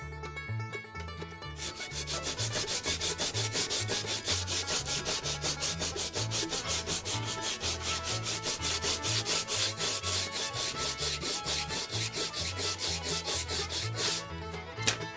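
Sanding block rubbed fast back and forth along a glued-up rod blank, taking off the excess glue, at about five even strokes a second. It starts about a second and a half in and stops about a second before the end.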